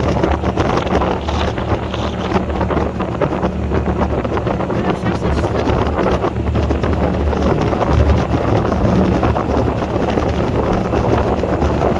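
Boat motor running steadily underway, an even low hum under heavy wind buffeting on the microphone.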